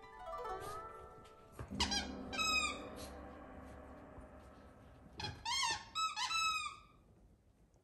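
Plush squeaky dog toy squeezed by a puppy's bites, giving short wavering squeaks: a few about two seconds in, then another quick run of them at about five to seven seconds.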